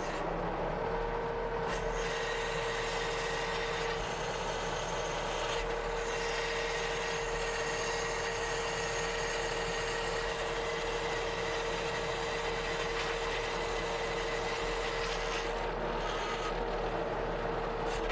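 Skid-steer loader running steadily while pulling a chained riding lawn mower, heard from inside its cab: a constant engine and scraping noise with a steady whine that sets in about a second in.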